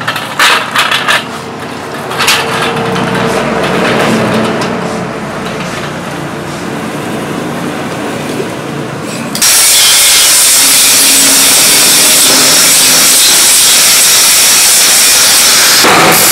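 A few clanks of a steel tube frame being handled. Then an electric angle grinder runs against steel. About nine seconds in, a much louder, steady abrasive grinding of steel suddenly takes over.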